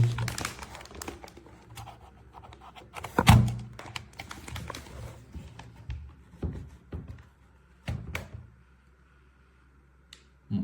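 Scattered knocks and clicks from handling a game controller and its USB-C charging cable, the loudest a thump about three seconds in.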